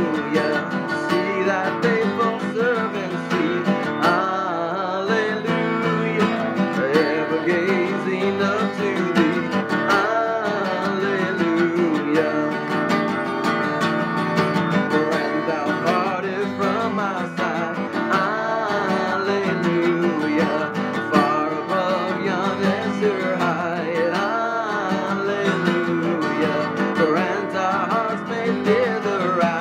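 Acoustic guitar playing the hymn tune in an instrumental break between verses, with a wavering melody line over the chords.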